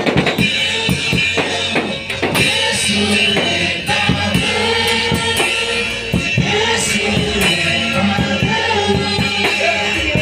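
Live church worship band playing with a drum kit, with singing over it.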